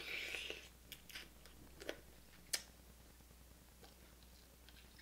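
Mouth sounds of seafood being eaten close to the microphone: a short sucking hiss as the food goes in, then soft chewing with a few sharp clicks over the next two and a half seconds.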